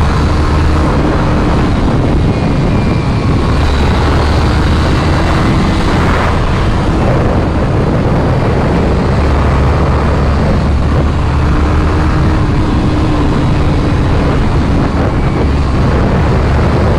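Supersport motorcycle riding at speed: a steady engine hum buried under heavy wind rush on the action camera's microphone.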